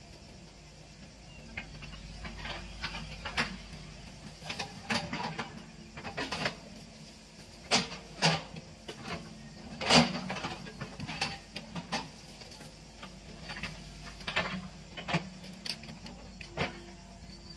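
Hitachi EX120 hydraulic excavator's diesel engine running with a steady low hum, under a series of sharp cracks and knocks as the machine works through brush and small trees; the loudest knock comes about ten seconds in.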